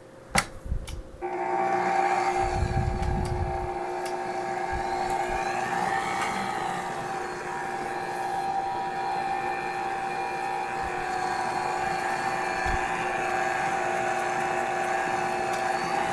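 A few knocks, then about a second in a stand mixer's motor starts and runs steadily with a level whine, its flat beater mixing flour into cake batter.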